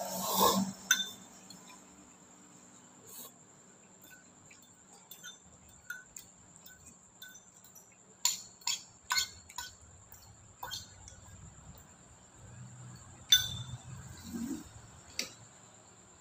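A metal spoon clinking and tapping against a bowl while noodles are eaten. The sharp taps come at scattered moments, most of them close together around the middle.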